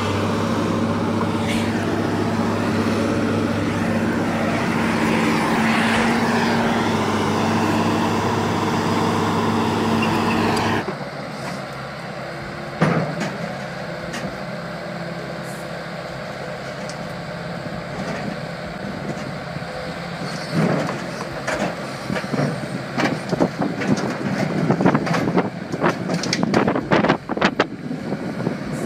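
Heavy excavator's diesel engine running steadily, cut off abruptly about a third of the way through. Then a quieter excavator engine with scattered metal clanks and knocks, growing frequent and loud near the end as a New Holland compact excavator's steel tracks climb onto a dump truck's bed.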